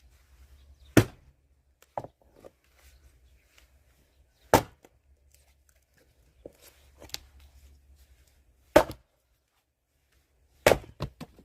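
Axe splitting firewood logs: four heavy chopping strikes a few seconds apart, with lighter knocks of wood in between and a quick double knock near the end.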